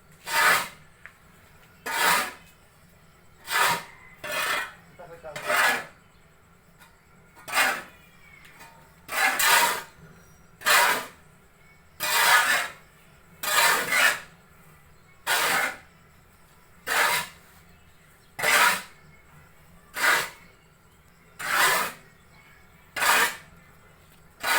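A tool scraping through a sawdust mixture in steady repeated strokes, about one every one and a half seconds.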